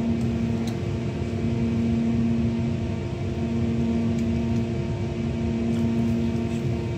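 Inside a moving passenger train carriage: a steady low rumble with a constant droning hum from the train.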